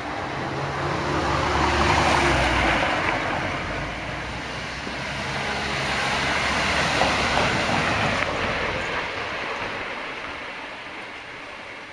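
Two vehicles passing one after the other, the first swelling to its loudest about two seconds in with a low engine hum under the rush, the second peaking about seven seconds in before fading away.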